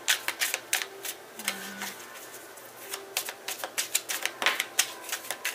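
A deck of tarot cards being shuffled by hand: a quick, irregular run of sharp clicks and flicks.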